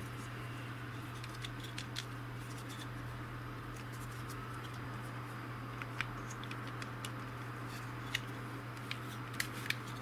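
Scattered small clicks and taps of a TV-remote's plastic case and rubber keypad being handled and fitted together, over a steady low hum.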